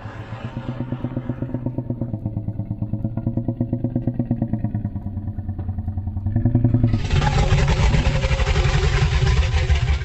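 Reconstructed Carcharodontosaurus call: a low, fast-pulsing growl that swells about seven seconds in into a louder, fuller roar.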